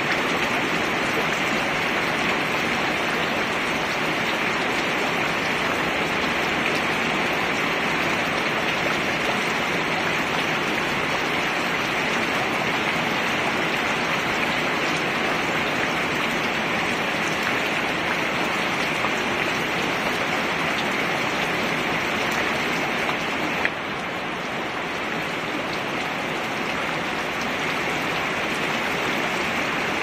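Steady rain falling on a plastic tub lid, a dense, even hiss of many small drop impacts, with a single brief click about three-quarters of the way through.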